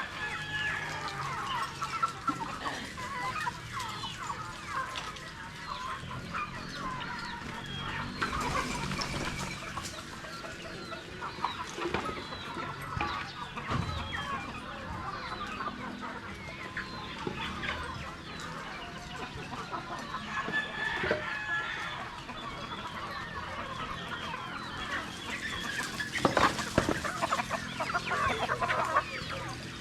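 A flock of Rhode Island Red chickens clucking and calling continuously, many birds at once. A louder, noisier stretch comes near the end.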